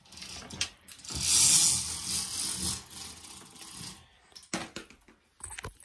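Rustling and rubbing handling noise from a phone being moved about close to its microphone. There is a loud hissing rustle about a second in, then quieter rubbing and a few sharp knocks near the end.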